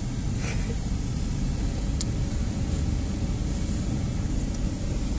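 Pickup truck driving slowly, heard from inside the cab: a steady low engine and road rumble, with a short faint click about two seconds in.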